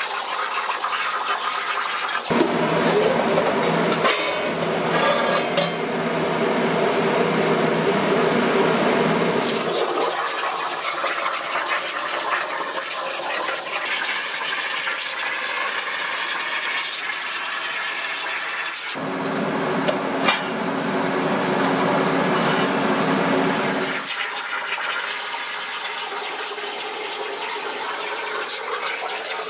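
Metal-fabrication tool noise: a steady hissing rush, joined twice by a louder humming machine tone that lasts several seconds each time.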